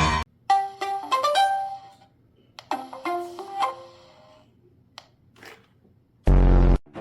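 Music: a few short phrases of plucked or struck keyboard-like notes with quiet gaps between them, then one loud, brief, buzzy blast near the end.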